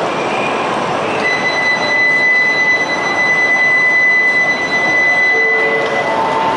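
E5-series Shinkansen train noise on the station platform: a loud, steady rush. A steady high-pitched tone starts about a second in, holds for about five seconds and then stops.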